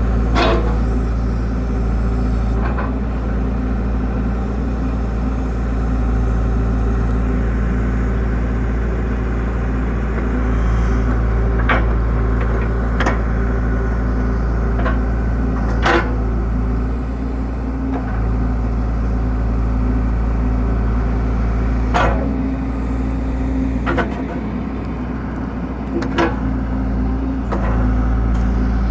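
John Deere 410G loader backhoe's diesel engine running steadily under operation, with about nine sharp clanks at irregular intervals.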